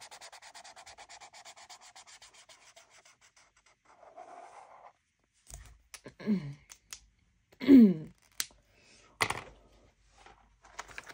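Felt-tip marker scribbling back and forth on paper to colour in, about ten quick strokes a second, fading out after about three seconds. Later come a few sharp clicks and two short sounds falling in pitch, the second, near eight seconds in, the loudest.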